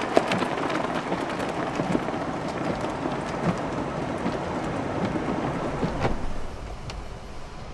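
Blizzard wind blowing hard: a steady rushing hiss peppered with fine ticks of driven snow, easing slightly near the end as a low wind rumble on the microphone grows.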